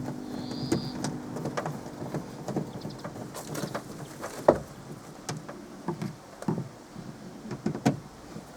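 Irregular clicks and knocks of hand work on a car door panel and its lock mechanism. An engine hum fades out in the first second and a half.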